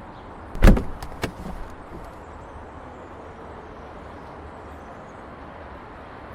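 A loud single thump about half a second in, then two sharp clicks, over a steady low background noise.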